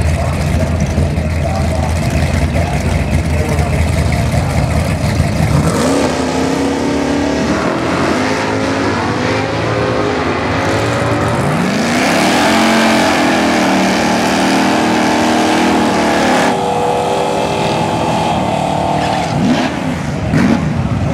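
Naturally aspirated V8 drag car, a Fox-body Ford Mustang, rumbling at the start line, then launching about six seconds in and accelerating down the strip. Its pitch climbs through the gear changes, holds high at full throttle, and cuts off about sixteen seconds in when the throttle is lifted.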